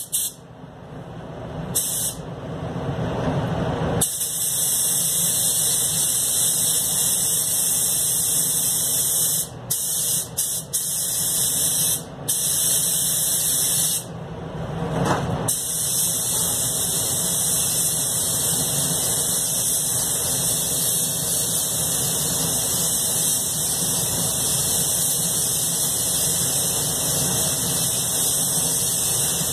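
Anest Iwata air spray gun hissing steadily as it sprays paint. The hiss starts about four seconds in, breaks off a few times, longest about fourteen seconds in, then runs on, with a low steady hum underneath.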